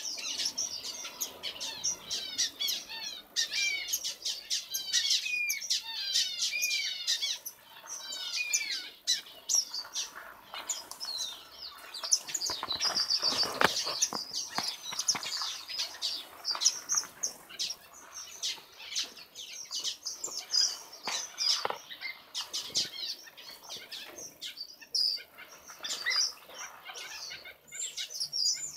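A mixed flock of small aviary finches and waxbills chirping and calling in rapid, high, repeated notes. There is a flurry of wingbeats around the middle.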